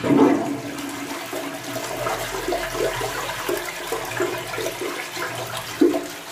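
Toilet flushing from its cistern: a sudden rush of water into the bowl, then steady swirling and gurgling as it drains, with one short louder gurgle near the end.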